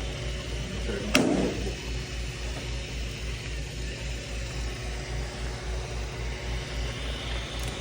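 Roomba robot vacuum running, its motor and brushes giving a steady hum with a low rhythmic pulse. A short click comes about a second in.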